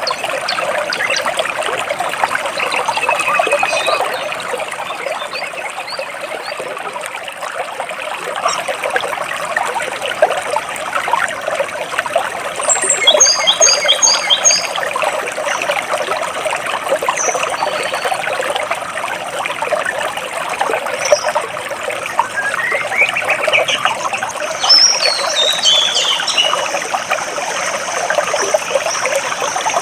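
Water trickling and splashing between rocks, with birds chirping over it: a quick run of repeated high notes about halfway through and a series of notes sliding up and then down near the end.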